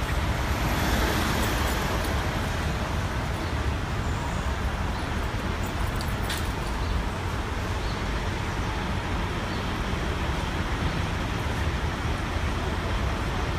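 Steady road traffic noise from a busy city highway, a continuous wash of passing cars and trucks, with a brief click about six seconds in.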